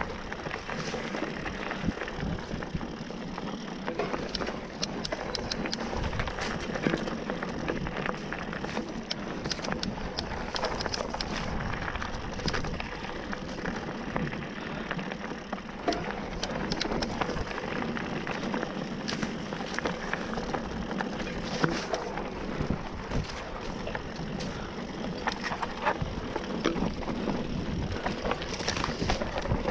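Mountain bike ridden over a rough dirt and gravel singletrack: steady tyre and trail noise with frequent sharp clacks and rattles as the bike bumps over stones and roots.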